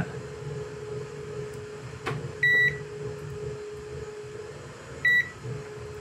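Digital multimeter's continuity beeper sounding as its probes are touched to the pins of a newly soldered USB connector: a short high beep about two and a half seconds in and a shorter one about five seconds in, each meaning the probed points are electrically connected. A steady hum runs underneath.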